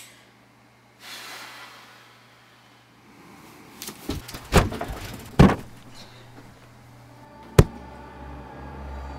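A whoosh, then several heavy thumps of feet stamping across a floor heaped with clothes, a sharp knock near the end, and a low hum coming in after it.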